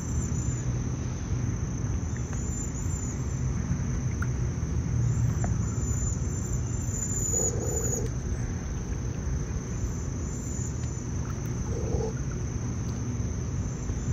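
A steady, high-pitched insect chorus over a low rumble of outdoor background noise, with two brief low sounds about halfway through and near the end.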